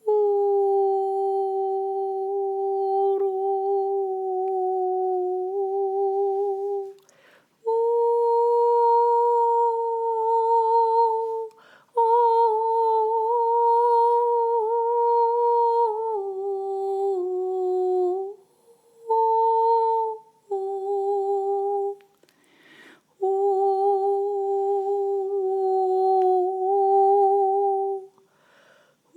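A woman's voice humming a series of long held notes, each several seconds long, with a quick breath between them. The pitch steps between two levels and dips down once about two thirds of the way through.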